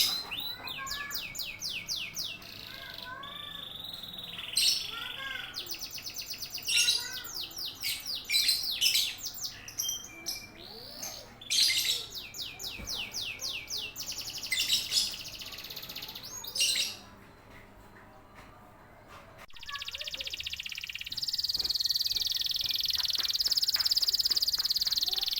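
Domestic canaries singing in rapid trills and warbled phrases, the fast repeated notes coming in bursts with short pauses. It goes quieter about 17 seconds in, then about 20 seconds in it switches abruptly to a long, steady, high buzzing trill.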